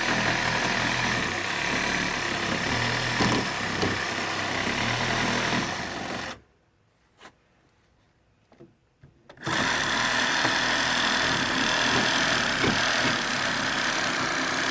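Cordless reciprocating saw (Sawzall) cutting through a shed wall: it runs steadily for about six seconds, stops for about three, then runs again.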